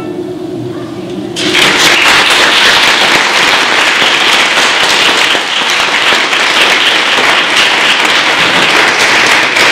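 Congregation applauding in a large church, breaking out about a second and a half in after a brief hush and carrying on steadily.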